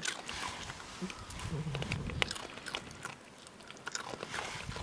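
Cats chewing and crunching food picked up off concrete, close to the microphone: an irregular string of small crunches and clicks.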